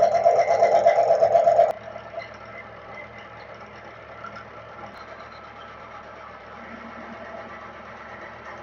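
Milling machine with a face mill cutting metal, a loud steady cutting noise that cuts off suddenly after about a second and a half. The machine then runs on much more quietly.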